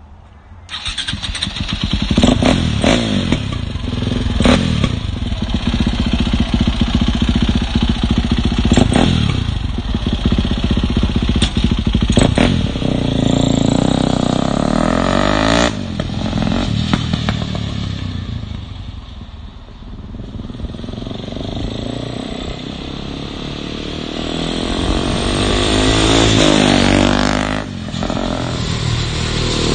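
KTM 450cc single-cylinder dirt-bike engine in a custom go-kart, revved in several sharp blips, then accelerating away with rising pitch. It fades somewhat and swells louder again near the end.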